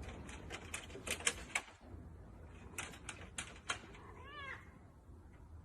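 A series of sharp clicks or taps, then a single short cat meow about four seconds in, rising and falling in pitch.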